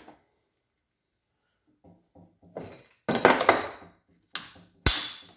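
Metal clinks and scraping as a ball-bearing insert is turned and worked loose out of a steel flange bearing housing, with a few small knocks, a louder clatter, and one sharp metallic knock near the end.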